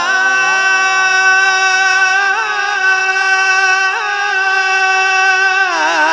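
A male qari reciting the Quran in the melodic tilawat style, holding one long drawn-out note with small ornamental turns, and moving to a new pitch near the end.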